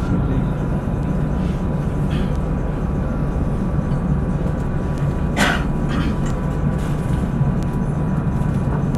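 Tram running at low speed, heard from inside the car: a steady low rumble with a faint constant tone above it. A short, sharp, higher sound cuts in a little past halfway, with a weaker one just after.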